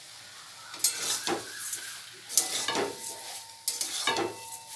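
Slotted steel spatula stirring and scraping chopped tomatoes and sugar around a stainless-steel kadhai in several irregular strokes, with a soft sizzle of the tomatoes cooking underneath.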